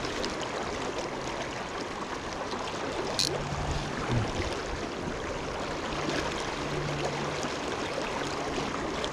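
River current rushing steadily over a riffle, an even, unbroken hiss of flowing water.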